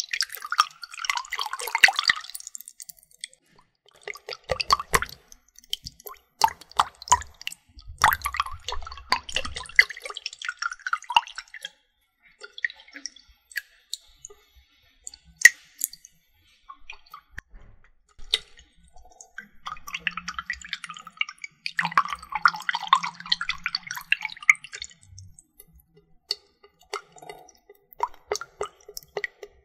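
Water trigger sounds close to the microphone: irregular drips and splashes of water, coming in clusters of wet noise with sharp single drips in between.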